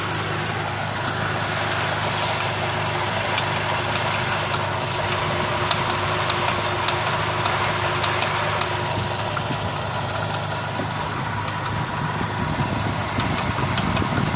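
Engine idling steadily with a light, repeated knock running through it.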